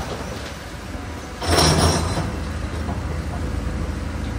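Cat 320 tracked excavator's diesel engine running as it works its hydraulics. The engine note grows stronger about a second and a half in, at the same moment as a brief loud burst of noise.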